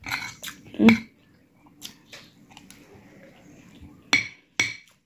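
Close-up mouth sounds of chewing rice, beans and fried fish, then two sharp clicks of a metal spoon against the plate near the end.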